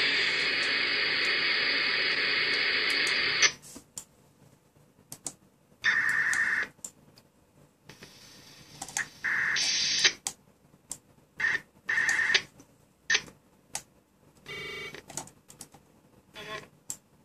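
Receiver audio from an RTL-SDR software radio tuned near 441 MHz: steady static hiss that cuts off suddenly about three and a half seconds in, then short scattered transmissions of buzzing, bleeping tones and clicks between quiet gaps.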